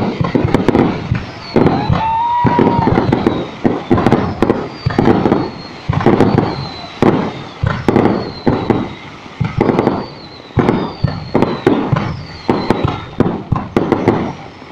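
Fireworks display: shells bursting one after another, one or two loud bangs a second, each with a crackling tail. Short high whistles fall in pitch between the bursts.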